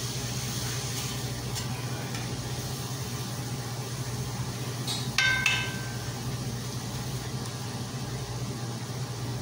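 Chicken gizzards sizzling in a stainless frying pan while being stirred with a metal spoon, which clinks and rings against the pan a few times about five seconds in. A steady low hum runs underneath.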